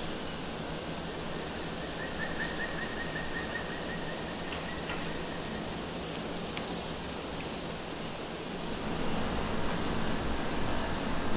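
Outdoor ambience: a steady hiss with small birds calling now and then in short, falling chirps, and a trill lasting about two seconds starting about two seconds in. The low background grows louder near the end.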